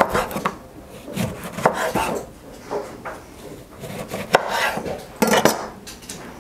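Chef's knife slicing a lemon on a wooden cutting board: a series of short, sharp knocks as the blade cuts through and strikes the board, spaced irregularly about a second apart, with lighter handling noise between them.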